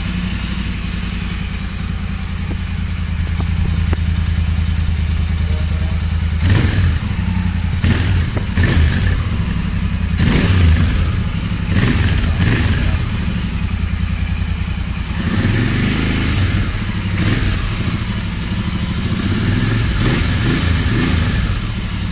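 Royal Enfield Continental GT650's 648 cc parallel-twin engine running through its stock exhaust, just after starting: a steady idle, blipped with a series of short throttle revs through the middle, then idling and revving lightly again toward the end.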